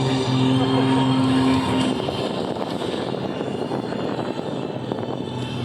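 Aerobatic propeller plane's piston engine running at high power, a steady droning tone for about two seconds, then a little quieter and rougher as the plane flies on.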